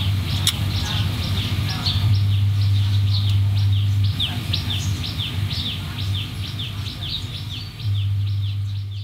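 A bird calling over and over in short falling chirps, about three or four a second, over a steady low hum.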